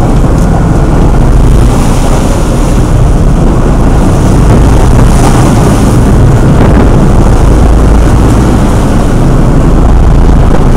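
Motorboat engine running steadily, with wind buffeting the microphone in a loud, low rumble.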